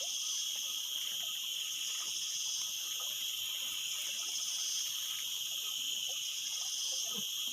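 Steady, shrill chorus of insects, several high-pitched tones held without a break.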